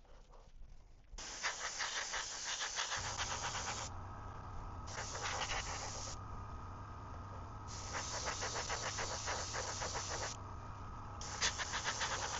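Airbrush spraying metallic blue paint in four bursts of hissing air, each one to three seconds long with short pauses between, with a rapid flutter inside each burst.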